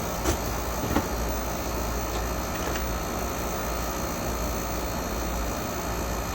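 TRS-80 Model 4P running just after power-on: a steady hum and hiss, with two light clicks in the first second as it tries its floppy drive, which has no boot disk.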